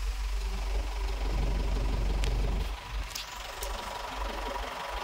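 Truck engine running with a low rumble, louder for the first two and a half seconds and then easing off, with a few faint clicks.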